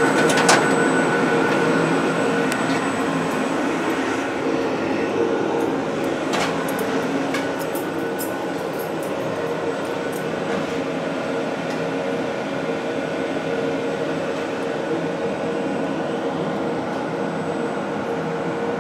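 Universal Instruments Advantis AX-72 pick-and-place machine running: a steady mechanical whir with a hum and a high whine through it, and scattered clicks in the first half as the placement heads work.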